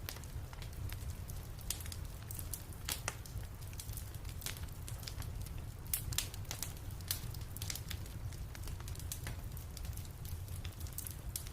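Wood fire burning in a fireplace, with a steady low rumble and irregular crackles and pops throughout. A few louder pops stand out, around three and six seconds in.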